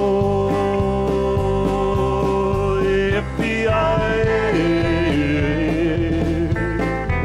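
Live country band playing, with drums keeping a steady beat under acoustic guitar and keyboards, while a male singer holds two long notes of the chorus, about three seconds each, with a short break between.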